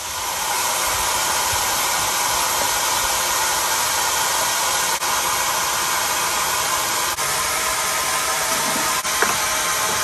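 A steady rushing hiss, broken by brief clicks about halfway through and again later.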